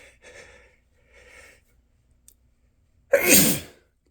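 A man sneezes loudly once, about three seconds in, after two softer breathy in-breaths building up to it: an allergy sneeze set off by a tickling nose.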